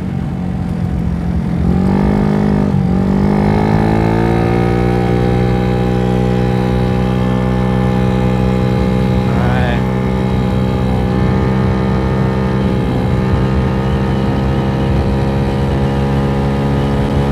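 GY6 scooter engine, big-bore kitted to 88cc with a Polini variator, running under way. Its pitch dips and climbs back about two seconds in, then holds steady at cruising revs.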